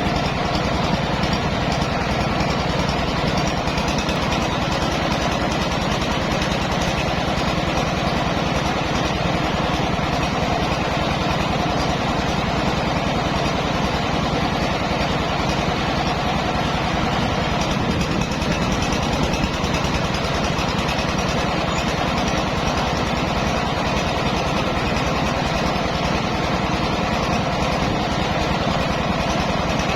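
Engine-driven mobile rice mill running steadily, a loud, continuous mechanical noise that doesn't change throughout.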